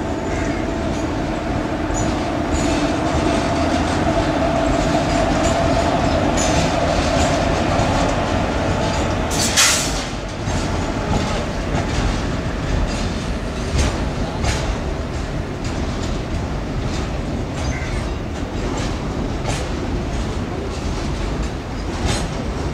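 Indian Railways freight train of covered box wagons and car carrier wagons rolling past, wheels clicking steadily over the rail joints. A steady hum fades out about ten seconds in, just after one brief loud sharp noise.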